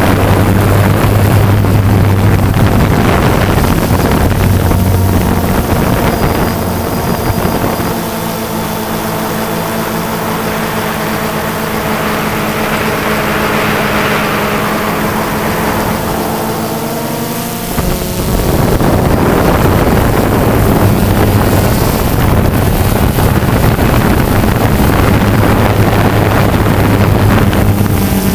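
Camera drone's electric motors and propellers humming steadily, heard from on board with wind buffeting the microphone. For several seconds around the middle the hum thins and shifts in pitch, then returns to its full, steady sound.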